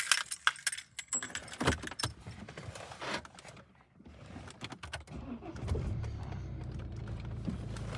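Keys jangling and clicking in the car's ignition for the first few seconds, then the BMW 118d's four-cylinder diesel engine starts about five seconds in and settles into a steady idle.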